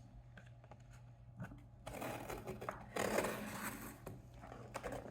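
Scraping and rustling as a cardboard shipping box is cut open, starting about two seconds in after a few faint ticks.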